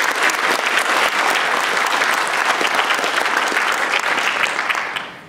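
Audience applauding in a large hall: dense, steady clapping that dies away quickly about five seconds in.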